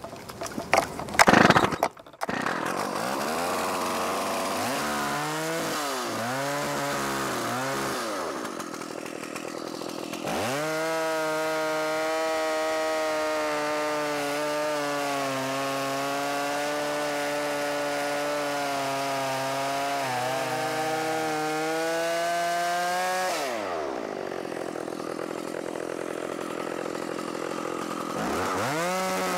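Stihl 056 AV two-stroke chainsaw pull-started, catching about two seconds in and revved up and down a few times. It then runs at full throttle for about thirteen seconds, ripping a cedar log lengthwise along a chainsaw mill guide. It drops back to idle and revs up again near the end.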